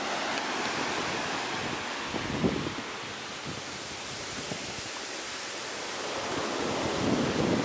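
Steady wash of ocean surf with strong wind buffeting the microphone, the gusts building near the end.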